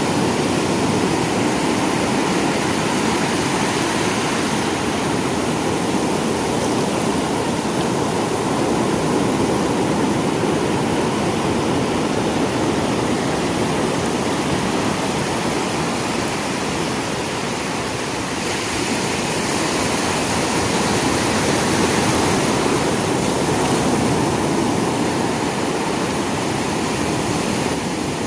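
Sea waves washing on a shore: a steady, unbroken rush of surf that eases slightly about two-thirds of the way through and then swells again.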